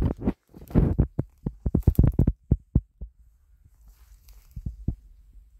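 Footsteps on the forest floor and thumps from a handheld camera as someone walks through brush: a quick run of dull thuds in the first three seconds, then fewer and fainter ones.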